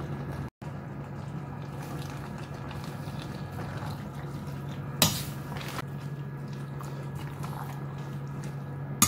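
Squid, fish cake and vegetables sizzling in a stainless steel pot while being stirred with a metal spoon, over a steady low hum. A short sharp scrape of the spoon against the pot comes about five seconds in, and the sound cuts out for a moment just after the start.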